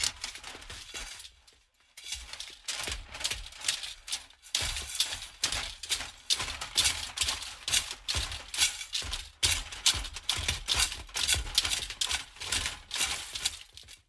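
Metal rattling rhythmically: repeated clusters of sharp metallic clinks and rattles, a few each second, with a short pause about a second and a half in.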